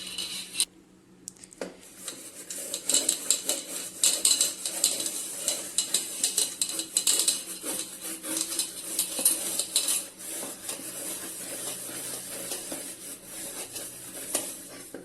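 Scrubber rubbing and scraping the inside of a burnt electric kettle in soapy dishwashing liquid, a continuous irregular scratchy scrubbing with a short pause about a second in. The scrubbing is working off burnt deposit loosened by the soaking.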